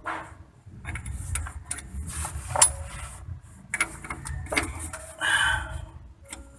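Metal hand tools handled while working on a vehicle differential: irregular clicks and clinks of socket and wrench, one sharp ringing clink about two and a half seconds in, and a short rasping burst near the end.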